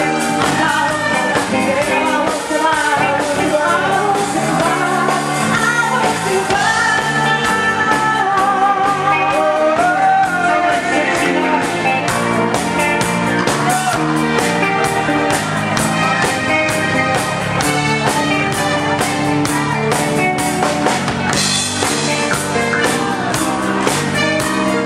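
Live band playing with drum kit and keyboard under a steady beat, a woman singing lead into a microphone; the sung melody is strongest in the first half.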